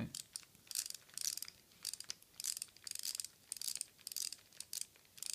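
Transmetals 2 Prowl toy's button-driven spinning wing gimmick: plastic gears ratcheting in short rattling bursts, about two or three a second, as the back button is pressed over and over and the wings whirl.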